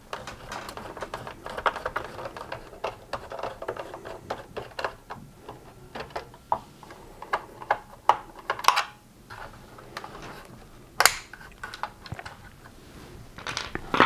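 Torx screwdriver undoing small screws in the plastic housing of a Gtech AirRam vacuum's motor assembly: a run of light, irregular clicks and scrapes, with one sharper click near the end.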